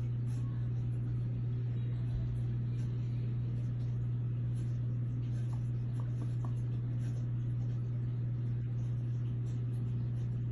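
A steady low hum at one unchanging pitch, with a few faint ticks around the middle.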